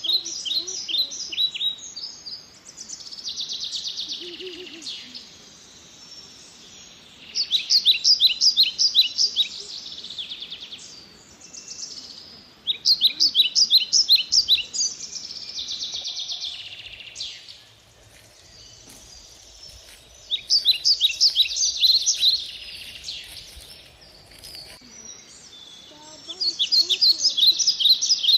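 A songbird singing the same song over and over: a quick series of high notes followed by a softer buzzy tail, about every six seconds, five times. A faint steady forest background sits beneath it.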